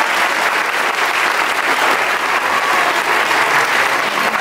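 Large audience of schoolchildren applauding, steady dense clapping.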